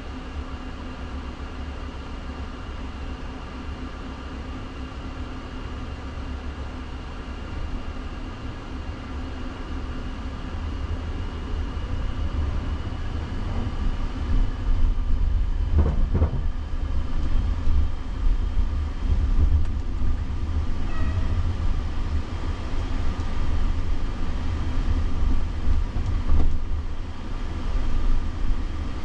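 Cabin noise inside a Waymo Jaguar I-PACE electric SUV on the move: a low rumble of road and tyre noise with a faint steady hum under it. The rumble grows louder about halfway through as the car picks up speed, with two brief knocks, one in the middle and one near the end.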